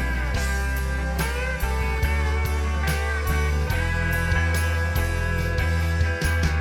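Background music: rock with electric guitar, a steady beat and strong bass.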